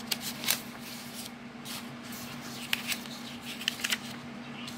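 Sheets of a stapled, printed paper cross-stitch pattern being turned over one after another: short crisp paper rustles and flicks, several times, with a small cluster near the end.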